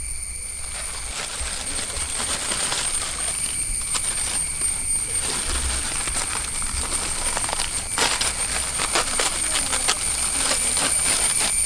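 Plastic instant-noodle wrappers crinkling and tearing as packets are opened, with dry noodle blocks and crumbs clattering and ticking onto a metal tray. The crackling gets busier about two-thirds of the way in, over a steady high-pitched whine.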